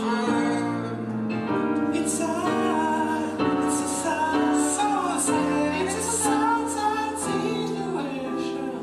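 A voice singing held notes with vibrato over sustained grand piano chords.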